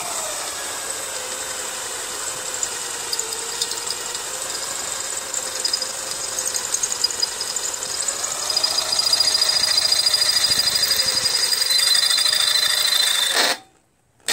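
Cordless drill running under load, a wood drill bit boring into metal; the motor's whine wavers in pitch and a high squeal of bit on metal gets louder about two-thirds of the way through. The drill stops abruptly shortly before the end, then a brief final burst.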